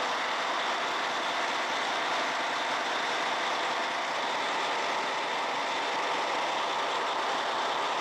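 Steady, even rushing noise of a crab-fishing boat under way at sea, with no distinct beat or events.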